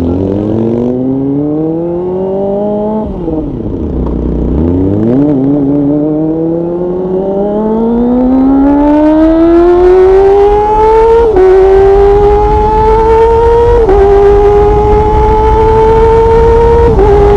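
Kawasaki Ninja ZX25R 250cc inline-four with an Orion aftermarket exhaust accelerating hard, its note climbing to a high-revving scream. About three seconds in the revs fall steeply and climb again, and later three quick upshifts each cut the pitch briefly before it rises again, as a quickshifter does.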